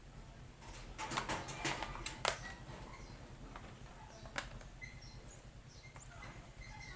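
Sharp clicks and taps of tools and the plastic laptop bottom cover being worked open: a cluster about a second in, a louder click a little after two seconds, and one more past four seconds.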